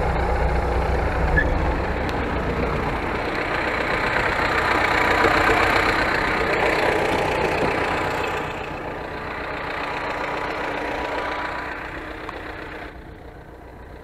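Tractor engine idling, heard at first from the cab and then from beside the tractor; it grows fainter about eight seconds in and again near the end as the listener moves away from it.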